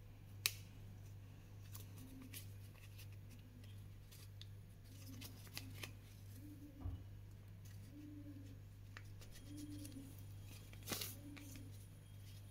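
Scissors cutting a paper sheet: scattered short snips, the sharpest about half a second in and a louder cluster near the end.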